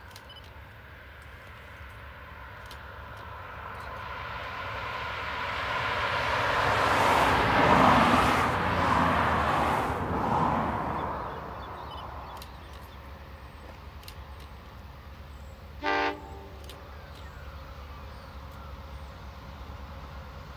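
A passing road vehicle's noise swells to a peak around the middle and fades away. About two-thirds of the way through, the distant approaching train gives one short horn toot.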